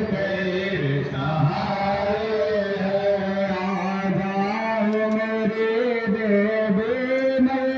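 Mantra chanting at a Hindu yajna (fire ritual), in long held notes that flow on without a break.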